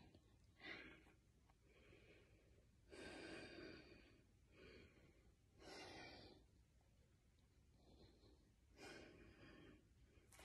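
Faint, slow, heavy breathing of a woman straining to hold a forearm plank: about four long breaths, one roughly every three seconds.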